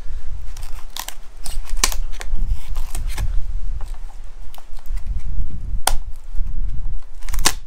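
Parts of a broken Apple iPad being handled and taken apart: several sharp clicks and knocks of the casing and components over a low rumble of handling noise.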